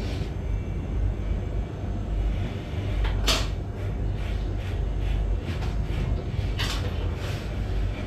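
Short crisp snips and clicks of a barber's scissors and comb working through hair, the two sharpest about three seconds in and near seven seconds, over a steady low rumble.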